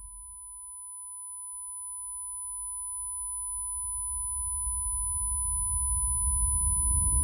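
A steady electronic sine tone near 1 kHz with a fainter high whine above it, under a low rumble that swells steadily louder.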